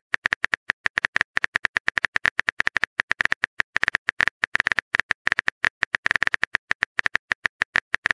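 Phone on-screen keyboard typing clicks: a rapid, even run of short taps, about eight a second, as a message is typed.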